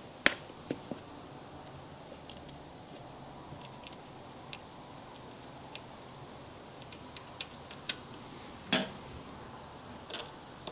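Scattered light metallic clicks and taps from hand work on a motorcycle during reassembly, with a sharp knock just after the start and a louder one about nine seconds in.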